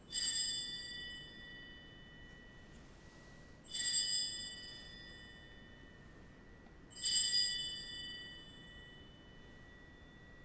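Altar (sanctus) bell struck three times, about three and a half seconds apart, each strike ringing out with bright high overtones and a lingering tone: the bell rung at the consecration of the eucharistic bread.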